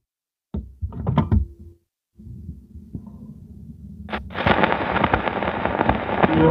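His Master's Voice acoustic gramophone being readied: a few knocks and clicks, then the turntable running with a low hum. Just after four seconds in, the soundbox needle drops onto the Polydor 78 rpm shellac record with a sharp click, and the steady crackle and hiss of the run-in groove follows.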